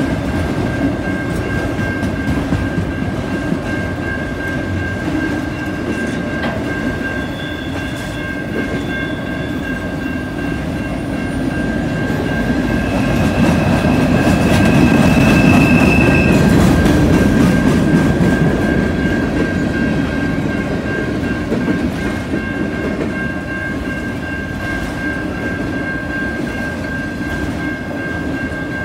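Freight train cars, autoracks and a centerbeam flatcar, rolling past at speed with wheels clacking over the rail joints. The rumble swells louder about halfway through, with a brief squeal, over a steady high tone that runs throughout.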